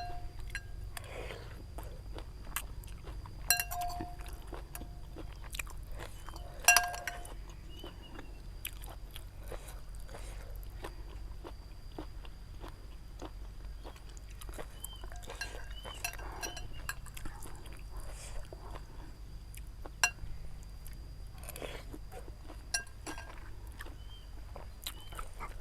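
Close-up chewing and crunching from someone eating pork noodle soup. A few ringing clinks of a spoon against the bowl come at about 3.5 and 7 seconds.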